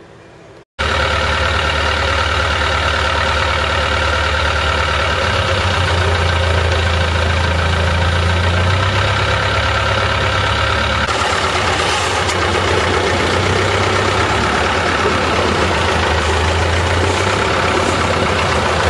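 Canal boat's engine running with a steady, loud drone and a strong low hum, cutting in abruptly just under a second in after a moment of quiet room tone.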